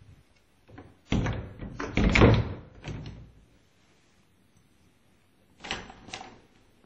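Closet door being moved: a run of knocks and rattles starting about a second in and lasting a couple of seconds, then a shorter double knock near the end.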